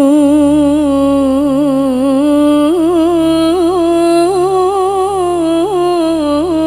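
A woman's solo voice through a PA sings one long unaccompanied melismatic phrase in qasidah style, full of quick ornamental turns. It steps up a little in pitch about three seconds in. A faint low steady drone sits underneath.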